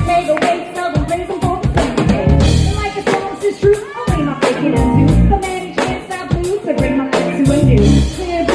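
Live band playing a song: a singer over a drum kit.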